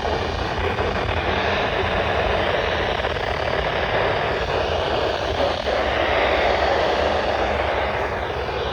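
Steady hiss of radio static from a weather-radio receiver, with no voice standing out above it.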